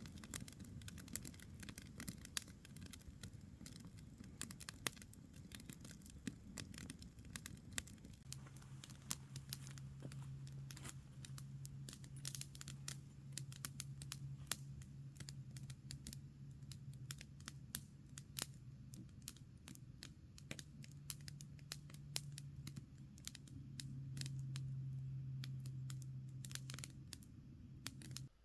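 Irregular crackling: a dense run of small sharp snaps and ticks. A steady low hum comes in about eight seconds in and grows louder near the end.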